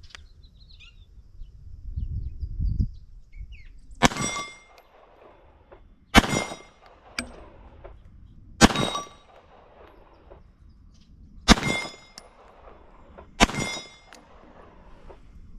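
Five 9mm pistol shots from a single-action CZ 75, fired slowly and unevenly two to three seconds apart, the first about four seconds in. Each shot is followed by a short metallic ring from the steel plate downrange.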